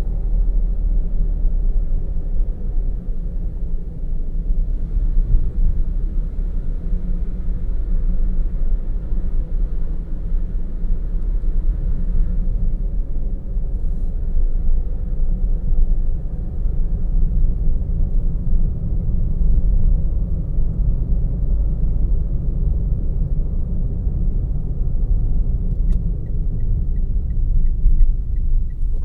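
Steady low road rumble of a car driving, heard from inside the cabin: tyre and engine noise with no change in pace. Near the end a quick, regular ticking comes in, about two or three ticks a second.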